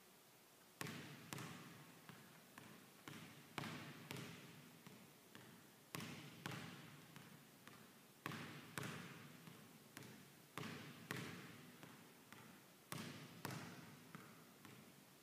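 Basketball dribbled hard on a hardwood gym floor, about two bounces a second in a slightly uneven rhythm, each bounce echoing in the hall. It starts about a second in and stops shortly before the end.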